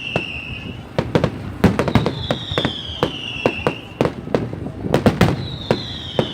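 Fireworks going off in quick succession: many sharp bangs and pops of varying loudness, some with a brief echo. A falling whistle, each lasting about a second and a half, sounds about every three and a half seconds, near the start and again about two and five seconds in.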